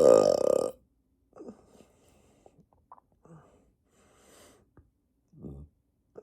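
A long, loud belch, its pitch wobbling up and down, that ends about a second in. Only a few faint, short breaths and mouth sounds follow.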